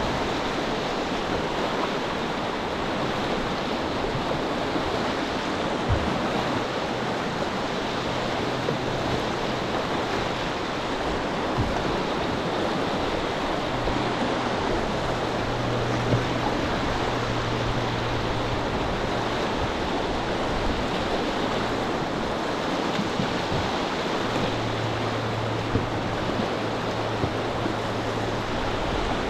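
River whitewater rushing and breaking steadily around an open canoe that is holding its place surfing a standing wave in a rapid.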